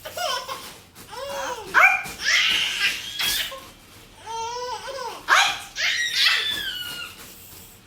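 Several sneezes, with high-pitched vocal sounds and laughter between them.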